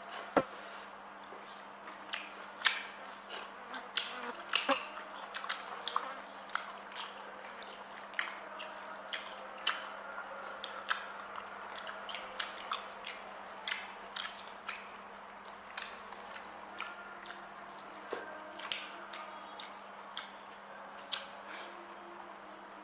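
Close-up eating sounds of someone chewing octopus and rice: irregular wet clicks and smacks of mouth and teeth, several a second at times. A faint steady hum runs underneath.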